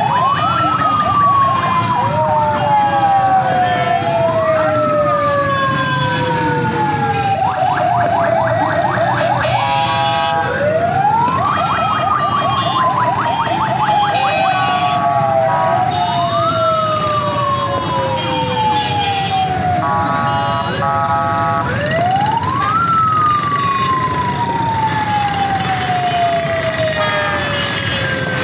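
Vehicle siren wailing over and over: each cycle climbs quickly and then slides slowly down over a few seconds, about every four seconds, with a second siren overlapping at times and short runs of rapid warbling in between. Crowd and traffic noise beneath.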